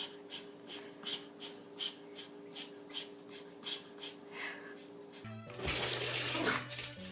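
Background music: a held chord under light, even ticks about three a second, changing about five seconds in to a fuller, louder passage with a low bass note.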